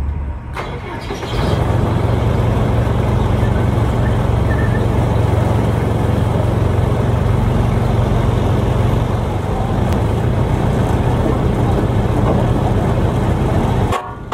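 Heavy farm machinery engine running steadily at raised revs: a loud, even drone that comes up sharply about a second in and cuts off abruptly near the end.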